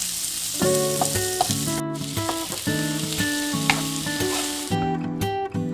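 Food sizzling as it fries in a hot pan, breaking off for a moment about two seconds in and stopping near the end. Strummed acoustic guitar music plays over it from under a second in.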